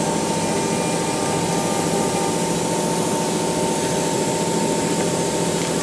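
Steady machinery noise: a continuous hum and hiss with a thin, even whine, unchanging throughout.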